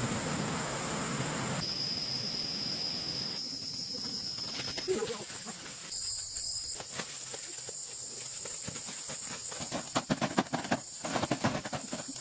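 Insects droning in steady high-pitched tones, with a dense run of rustling and crackling over the last few seconds.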